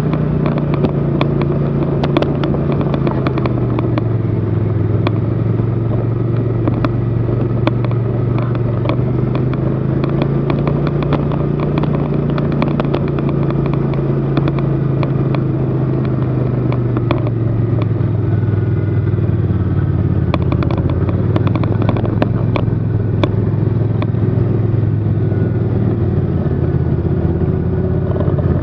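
Snowmobile engine running at low speed, with many sharp clicks and ticks over it. The engine note drops a step about four seconds in and again around seventeen seconds, as the sled slows.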